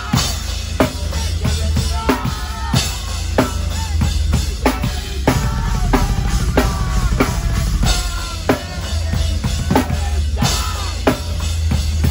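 Drum kit played hard in a heavy metal song, heard close up: a dense, steady kick drum under snare strikes about every two-thirds of a second, with cymbals. The rest of the band's music plays behind it.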